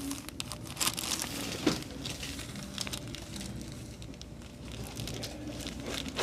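Rustling and crinkling handling noise as a patient is positioned on a chiropractic table for a neck adjustment, with many small scattered clicks, a sharper one about a second and a half in and a loud sharp click at the very end.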